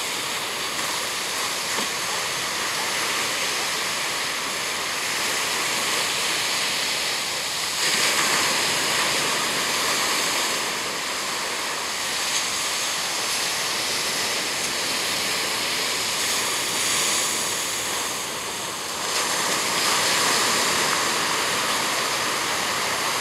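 Ocean surf washing up the beach, a steady rush that swells louder about eight seconds in and again near twenty seconds.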